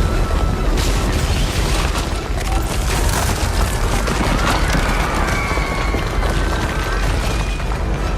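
Movie sound effects of a mega-earthquake tearing apart a dam: a loud, continuous deep rumble with crashing and debris noise, and a film score underneath.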